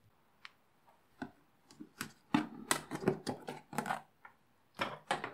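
Clicking and crackling of a clear plastic food tub as its snap-on lid is pried off and the tub is handled, with a dense run of crackles in the middle and another short cluster near the end.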